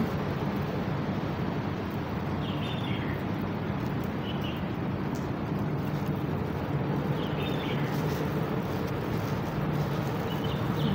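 Steady low background hum of an outdoor place, with a few faint short high chirps about two, four and seven seconds in.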